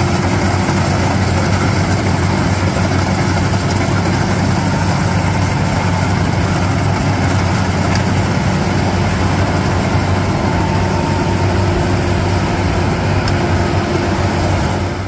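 Rice combine harvester running steadily, a loud engine hum with a thin high whine that comes and goes every second or two.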